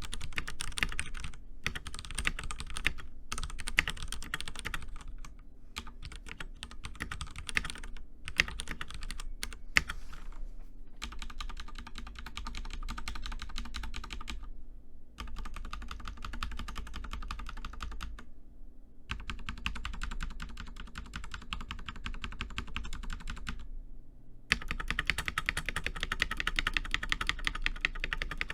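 Stock Ducky One 3 TKL mechanical keyboard with Cherry MX Red linear switches being typed on fast: a dense run of keystroke clicks broken by a few short pauses, louder for the last few seconds.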